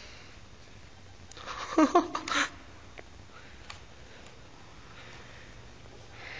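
About two seconds in, a short, loud burst of a person's voice comes together with a few sharp knocks; otherwise only the low hum of a quiet room, with a couple of faint clicks.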